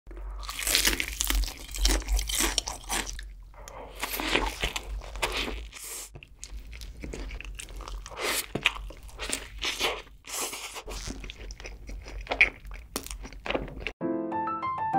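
Close-miked eating: loud, crisp crunches of bites into crispy fried chicken, with chewing and a softer bite of a cheeseburger. Near the end the eating stops abruptly and light piano music comes in.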